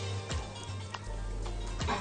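Background music with steady sustained notes, a repeating bass line and a few light clicks.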